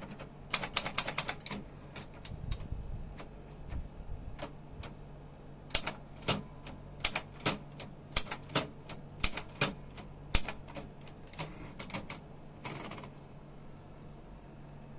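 ALL 3000 typewriter being typed on, with irregular runs of sharp key strikes over a steady low hum. A short high tone sounds a little before halfway, and a brief rushing sound comes a few seconds later, after which the typing stops.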